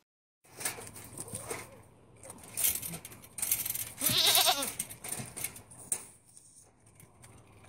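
A goat bleating once, a loud wavering call about four seconds in. Scattered rustling and knocking noises come before it.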